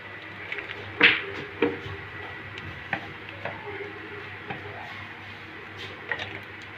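Knocks and clunks of a blender jar being handled and set onto its base. The loudest knock comes about a second in, and a few lighter ones follow, over a faint steady hum. The motor is not running.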